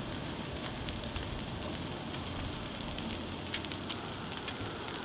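Burning dry grass and brush crackling, a steady hiss dotted with many small sharp pops.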